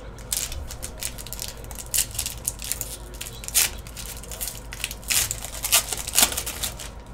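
Foil wrapper of a trading card pack crinkling and tearing as it is pulled open by hand, a run of crackles with louder snaps about two, three and a half, five and six seconds in.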